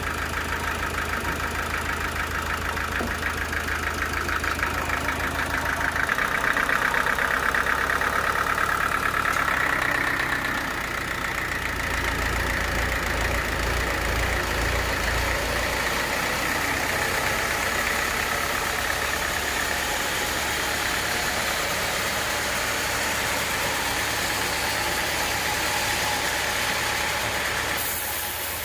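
Engine-driven sawmill running steadily, its saw cutting through an acacia log. It grows louder about six seconds in and eases off around ten seconds.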